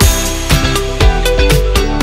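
Background music: an upbeat electronic track with a steady drum beat and bass, the full beat coming in right at the start.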